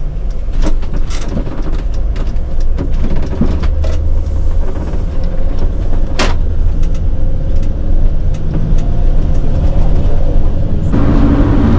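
Sprinter van driving, heard from inside the cabin: steady engine and road rumble with scattered rattles and clicks. There is one sharp click about six seconds in, and a steadier hum comes in near the end.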